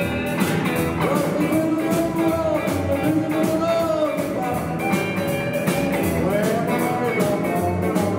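Rockabilly band playing live: acoustic guitar, electric guitar with bending lead notes, keyboard, and an upright double bass, with a steady clicking beat several times a second.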